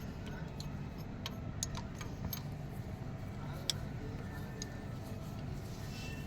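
Hand tools clicking against metal engine parts: scattered light ticks at uneven intervals, over a steady low hum.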